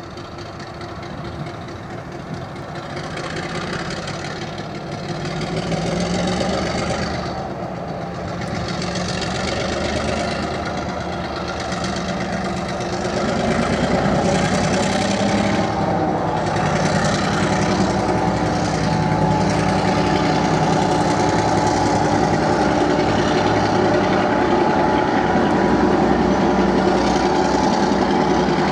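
Victorian Railways Y class diesel locomotive pulling away under load with a train of heritage carriages. The engine grows steadily louder as it approaches and passes, then holds as the carriages roll by.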